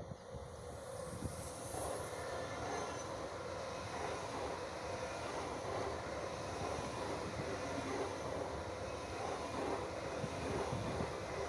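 Deutsche Bahn ICE high-speed electric train passing close by: a steady rush of wheel and air noise that swells over the first couple of seconds and then holds as the long set of coaches goes by.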